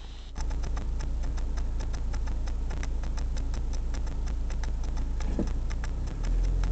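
Railroad grade-crossing warning bell ringing in fast, even strokes, about six a second, over the low steady drone of the car's engine. The low rumble grows louder near the end.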